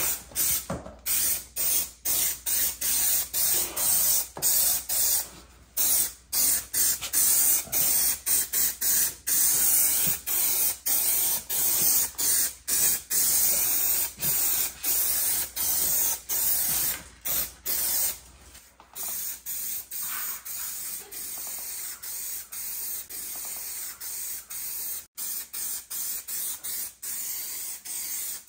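Aerosol can of high-strength spray contact adhesive hissing in a long run of short spurts as the glue is sprayed on. It turns quieter about two-thirds of the way through.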